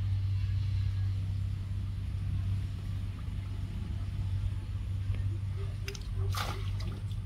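Steady low rumble throughout, with one short splashing rush about six seconds in as a fine-mesh lift net full of small fish is shaken out over the river.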